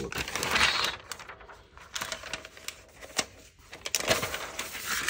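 Paper protective wrapping rustling and crinkling as it is unfolded and pulled off a new laptop, with scattered light taps and clicks. The rustling is loudest in the first second and again near the end.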